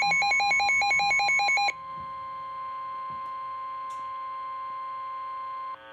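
Emergency alert tones for a flash flood warning. A rapid, pulsing electronic beeping over a steady tone cuts off a little under two seconds in, leaving a single steady alert tone, the NOAA Weather Radio 1050 Hz warning alarm, which stops just before the end.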